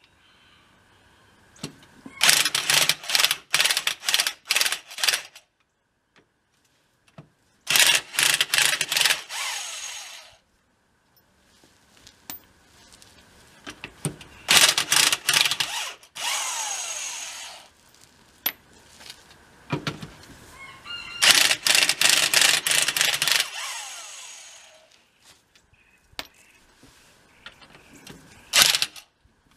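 Corded electric impact wrench with a 3/4-inch socket hammering on the axle-shaft flange nuts of a truck's rear hub to loosen them. It comes in several bursts of two to four seconds with pauses between, the motor whining down after some bursts, and a short final burst near the end.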